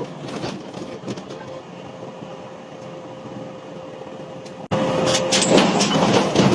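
Machinery running with a steady hum. An abrupt cut about three quarters of the way in brings louder running with clattering clicks.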